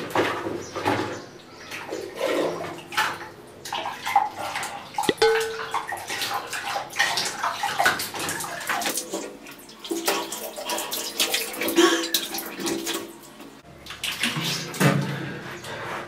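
Water splashing and sloshing in a plastic bucket as it is scooped with a jug and splashed onto the face, in irregular splashes and drips.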